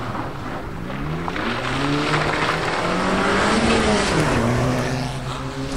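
Rally car engine revving hard as the car approaches and passes. It is loudest about three to four seconds in, and its pitch drops as it goes by.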